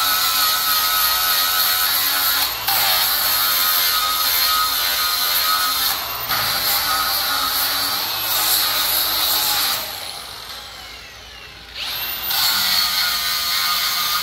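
Angle grinder with a flap disc grinding aluminum welds flat, the disc dressed with Burr-Lube paste so the aluminum does not load it up. The grinder runs with a steady whine, with a couple of brief breaks. It winds down about ten seconds in, its pitch falling, and starts up again about two seconds later.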